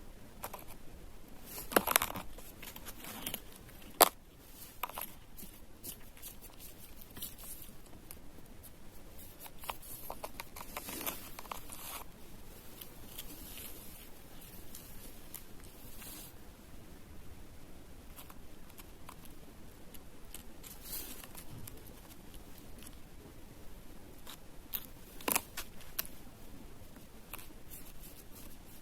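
A cat chewing dry biscuits: irregular crisp crunches and clicks of the pieces breaking between its teeth, with a few louder crunches about two and four seconds in and again near the end.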